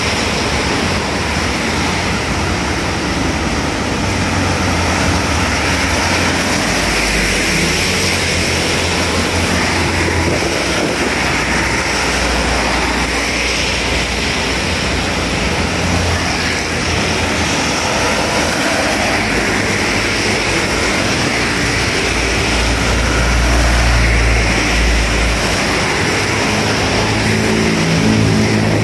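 Road traffic in rain: a steady hiss of rain and tyres on wet asphalt, with the engines of passing cars and motorbikes swelling and fading. Near the end a motor scooter's engine passes close.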